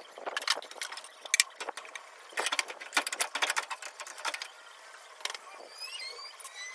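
Metal parts clinking and rattling in irregular clatters, with a few short rising squeaks about a second before the end.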